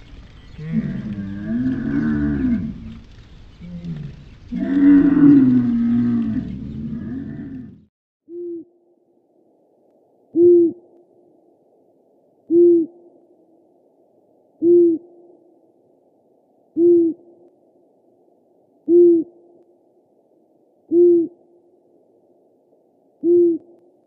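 A camel groans twice, long moaning calls that slide up and down in pitch. Then, from about eight seconds in, a burrowing owl gives a short low hoot about every two seconds, eight times, the first one faint.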